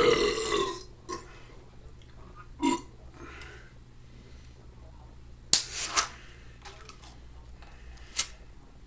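A man burping loudly for under a second, then a shorter burp about three seconds in. Later come a few sharp clicks, the loudest about five and a half seconds in and another near the end.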